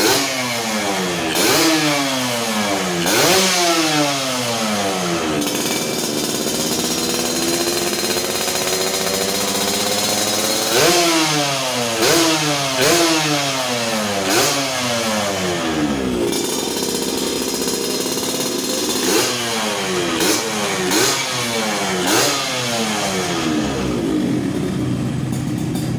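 Yamaha RX-King two-stroke single-cylinder engine running through a handmade stainless racing expansion-chamber exhaust, blipped in quick revs that rise sharply and fall back. There are three bursts of blips, with steady idling between them.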